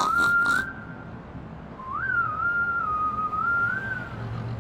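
A whistled tune of a few held, stepping notes: one short phrase, a pause of about a second, then a longer phrase.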